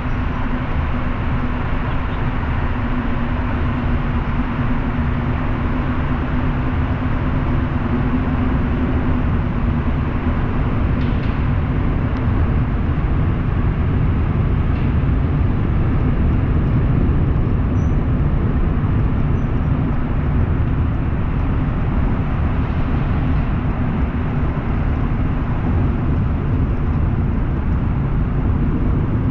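Steady road noise of a car being driven, tyres and engine together, with a low steady hum that fades out about a third of the way through.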